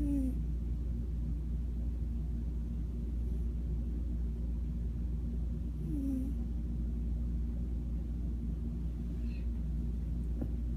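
Snoring: a steady low rumble, with a short squeaky falling note near the start and again about six seconds in.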